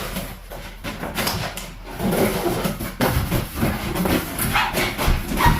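Cardboard packaging being handled: irregular rustling, scraping and knocks as the box is opened and an inner box is pulled out.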